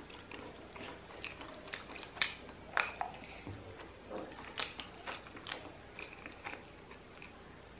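Close-up eating sounds: a person chewing momo dumplings in soup, with a run of short, sharp clicks and taps, the loudest about two to three seconds in, as a metal spoon works in a ceramic bowl.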